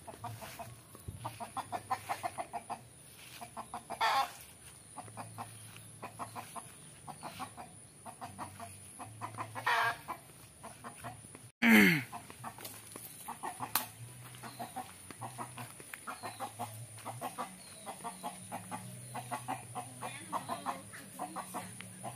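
Domestic chicken clucking in a steady run of short calls, a few per second, with three louder calls, the loudest about twelve seconds in and falling in pitch.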